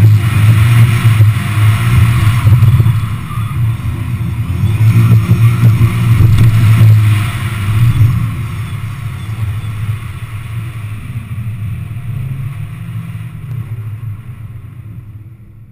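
Subaru Impreza GT's turbocharged flat-four engine revving hard and rising and falling between gates for the first several seconds. After about eight seconds it eases off to a quieter, steadier run as the car slows, then fades out near the end.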